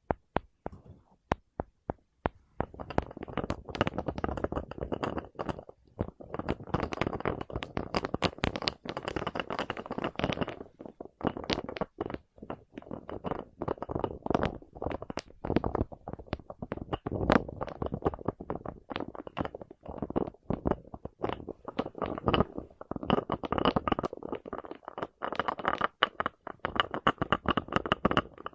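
Close-miked ASMR trigger sounds: a string of separate light taps, then from about two seconds in a dense run of quick tapping and scratching that goes on with a crackly texture.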